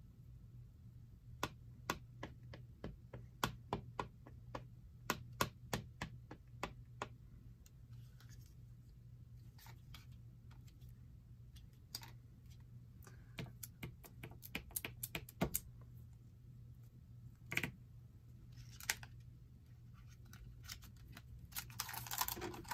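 Irregular small clicks and taps of paper pieces and craft tools being handled on a cutting mat, over a low steady hum. Near the end comes a louder crinkling rustle as a clear plastic stamp sheet is picked up.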